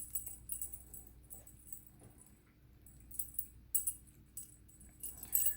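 Small metal parts of an Abus 83 padlock clinking and scraping against each other and the tools as it is put back together: an irregular string of light, high clicks and jingles.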